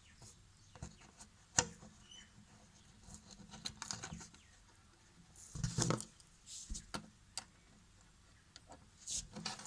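Hands working bent wire with small tools: scattered light clicks and taps, and one louder scraping rustle about halfway through.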